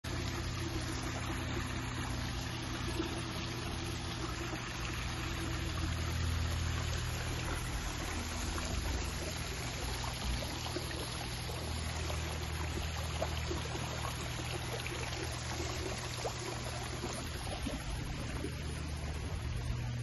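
Water running and splashing steadily in a small waterfall, with a low steady hum underneath.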